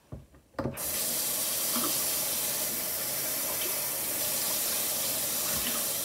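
Kitchen faucet turned on, about half a second in, with water running steadily into a stainless steel sink and over a glass electric kettle being rinsed out under the stream. A brief knock comes just before the water starts.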